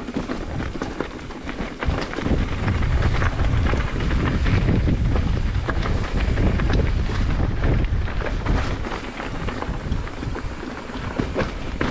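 Strong wind buffeting the action-camera microphone: a heavy, uneven rumble that swells about two seconds in and stays loud, with many small clicks and rattles through it.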